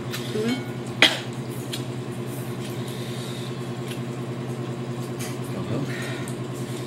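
A steady low mechanical hum from a motor or appliance, with a sharp click about a second in and a few fainter clicks of hands working seafood shells.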